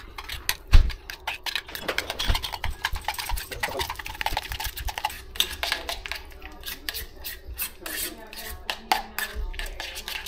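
A metal spoon clicking and scraping against a stainless steel bowl in quick, irregular taps as it mashes and mixes softened butter with minced garlic.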